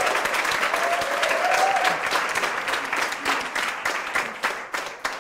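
Studio audience applauding, the clapping thinning to scattered claps and fading near the end.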